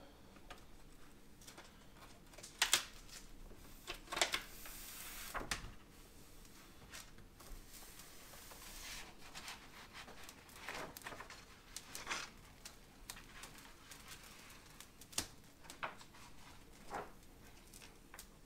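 A vinyl decal being peeled off its paper backing: faint stretches of ripping hiss as the adhesive lets go, with scattered crinkles and taps of the backing sheet.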